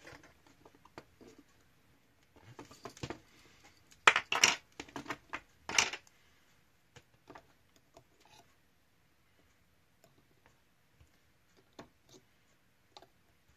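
Tweezers and fingers working fine wire into a plastic model railcar floor: small clicks and scrapes, with a louder run of scraping clicks about four to six seconds in, then only sparse light ticks.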